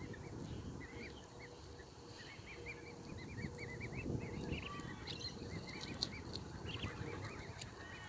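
Black swan cygnets peeping: a steady run of short, high cheeps that rise and fall in pitch, several a second, over a low background rumble.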